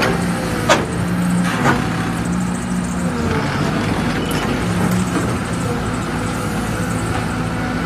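Cat 313D2 GC excavator's diesel engine running steadily, with two sharp metallic knocks about a second apart near the start.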